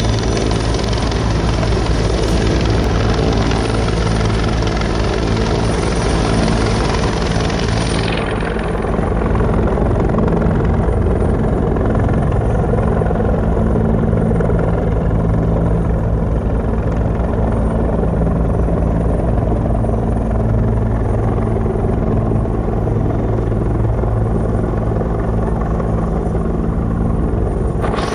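Delaware State Police helicopter hovering low, its rotor making a steady beat. The high hiss in the noise drops away about eight seconds in.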